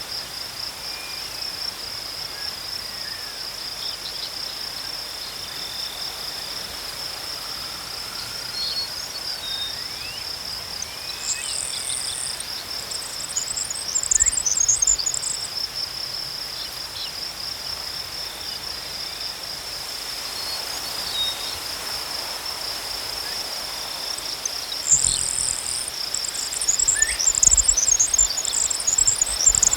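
Crickets chirping in a steady, fast pulsed trill, with a fainter second steady insect note a little lower in pitch. Twice, about 11 seconds in and again near the end, a higher scratchy chattering call joins in, along with a few low bumps.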